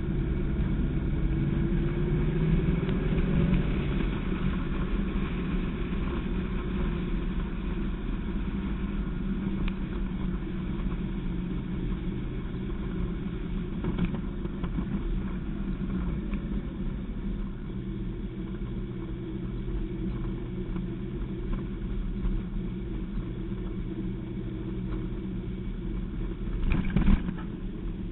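Westfield SEight's Rover V8 engine heard from the open cockpit while driving on track. Its pitch rises under acceleration over the first few seconds, then the engine runs steadily. A brief loud thump comes near the end.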